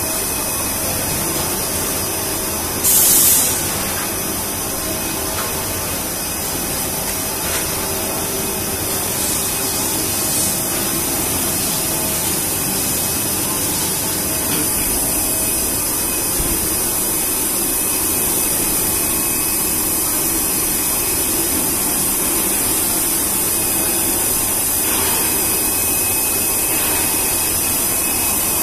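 Blown-film extrusion line running: a steady mechanical drone with a strong airy hiss, like blowers pushing air. About three seconds in there is a short loud burst of hiss.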